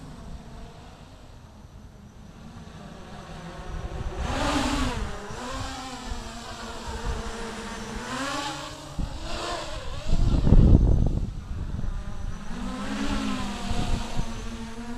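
Armattan CNC 258 quadcopter's motors and propellers whining, the pitch swelling and falling several times as the throttle is punched and eased. About ten seconds in there is a loud low rush of air.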